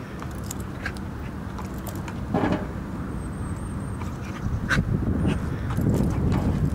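Short animal calls, repeated at irregular intervals over a steady low background hum, the loudest about two and a half seconds in.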